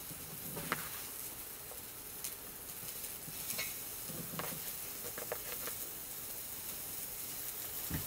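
Food sizzling on a hot grill plate: a steady frying hiss that starts as the food goes on, with occasional pops and clicks.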